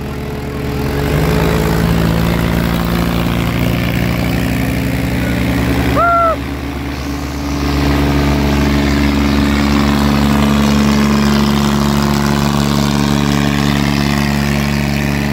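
Mahindra 265 DI tractor diesel engines running hard under load as two tractors pull against each other on a chain. The engine note rises about a second in and again about seven seconds in. A short call is heard about six seconds in.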